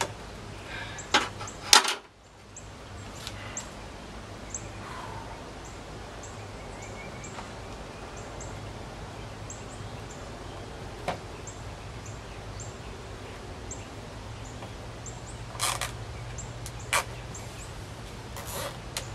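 Sharp clicks and short rattles from hands fastening straps on a roof's centerpiece to its metal frame, a few about a second in and more near the end. Short high chirps repeat all through, like a small bird calling.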